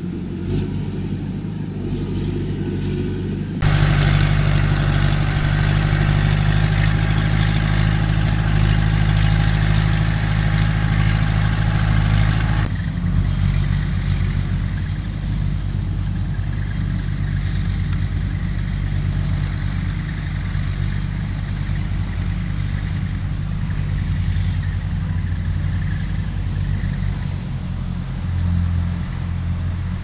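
Kubota RT120 single-cylinder diesel engine of a rice-sack carrier running steadily under load as the machine moves across the field. The sound jumps louder and fuller about four seconds in and drops back abruptly about thirteen seconds in.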